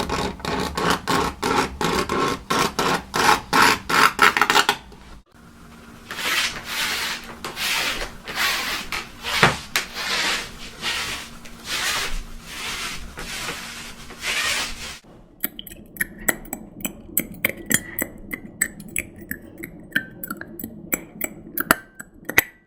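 Fingernails scraping down a blackboard in quick repeated strokes for about five seconds, then feet shuffling and dragging along the floor, then teeth biting and grating on metal cutlery in sharp clicks with a short ring.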